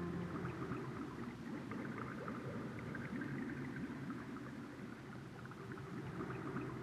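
Underwater bubbling and gurgling ambience sound effect, soft and steady, with a faint low hum beneath.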